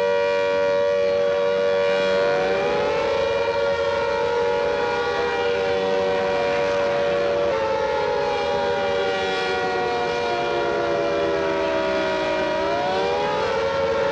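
Mechanical air-raid sirens sounding an alarm, several at once. Some hold a steady pitch while others wind up about two seconds in, sag slowly, and wind up again near the end.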